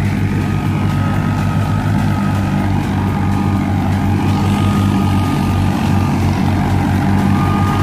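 Tractor-driven wheat thresher running: a loud, steady engine drone with a thin, high, steady whine over it.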